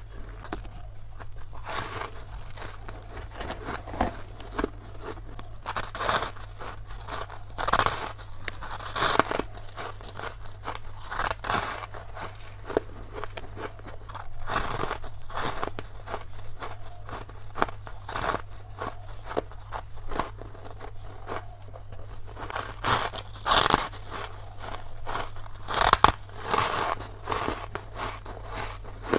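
Close-miked biting and chewing of freezer frost: irregular crunching and crackling bites that come in clusters throughout, over a steady low hum.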